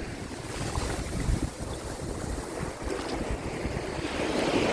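Gulf surf washing onto the beach, with wind buffeting the microphone in an uneven low rumble.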